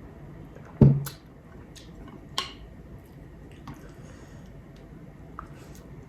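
A person eating chicken and broccoli casserole: a loud dull thump about a second in, a sharp click a little after two seconds, and faint soft mouth and food sounds between.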